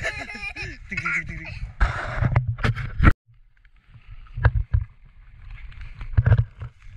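A young child's high voice chattering and laughing, over a low rumble of wind on the microphone. The sound breaks off suddenly about three seconds in. After that come footsteps and rustling through grass and undergrowth, with a few sharp knocks.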